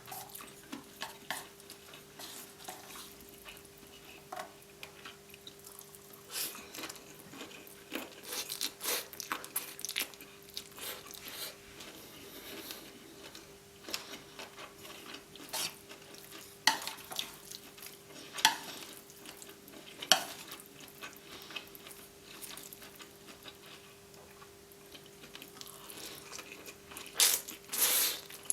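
Cutlery clinking and scraping against a plate as saucy fried noodles are stirred and eaten, in scattered short clicks, with a louder run of clatter near the end. A faint steady hum runs underneath.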